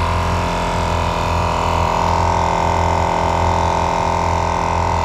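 Iker dual-cylinder portable 12-volt tire inflator running steadily, its compressor pumping air into a flat tire that is nearing 25 PSI. It makes a steady mechanical drone with a high whine.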